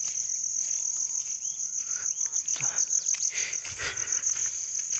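Insects chirping in a steady, high-pitched, rapidly pulsing trill, with a few faint rustles underneath.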